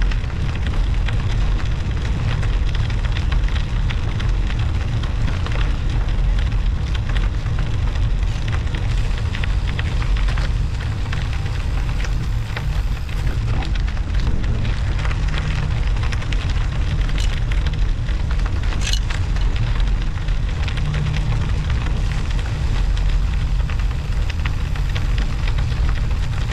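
Studded bicycle tyres (Schwalbe Marathon Winter Plus) crackling and crunching over snow and ice while riding. Under it is a steady low rumble of wind buffeting the action-camera microphone.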